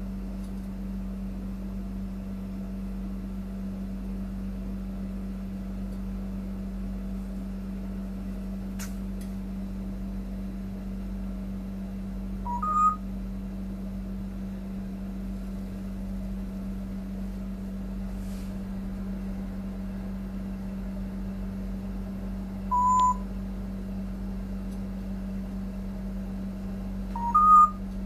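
Congo African grey parrot whistling short beep-like notes three times: a two-note rising whistle, a single held note, then another two-note rising whistle. A steady low hum runs underneath.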